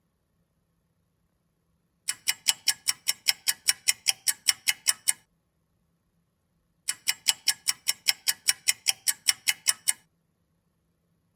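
Clock ticking quickly, about six bright metallic ticks a second, in two runs of about three seconds each with a pause of nearly two seconds between them.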